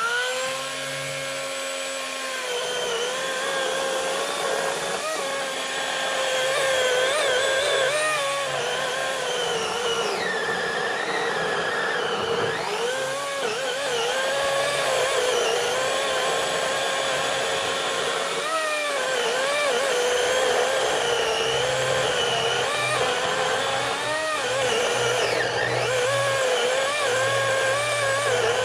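Greenworks GS180 cordless chainsaw's electric motor spinning up at the start, then running with a steady whine as it cuts into a tree trunk. Its pitch dips and recovers again and again as the chain bogs under load in the wood.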